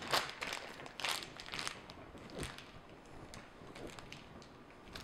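A thin disposable plastic pastry bag crinkling and rustling in the hands as it is filled with ganache and its top twisted. The crinkles are irregular, thickest in the first two seconds, then fewer and fainter.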